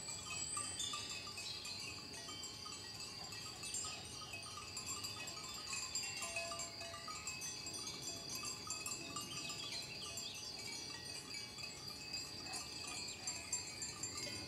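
Livestock bells on a grazing flock of sheep and goats tinkling at random, many small overlapping rings with no rhythm, over a steady high tone.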